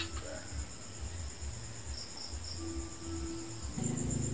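A cricket trilling steadily at a high pitch over a low hum.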